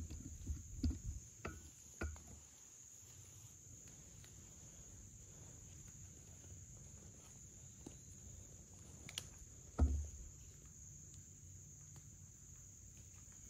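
A steady high-pitched chorus of insects, crickets or katydids, runs through. A few soft, dull thumps come in the first two seconds and a louder one about ten seconds in, with a sharp click just before it.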